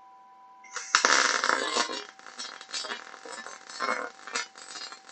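MIG/MAG welding arc on 4.7 mm steel plate, struck about a second in and then crackling and sputtering steadily, with uneven surges in loudness. It runs at low settings, about 17 V and 97 A, typical of short-circuit transfer.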